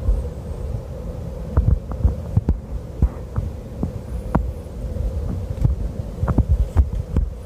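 Robinson light helicopter (R44 or R66) flying, a steady rotor and engine hum with a held tone. Irregular low thumps run through it.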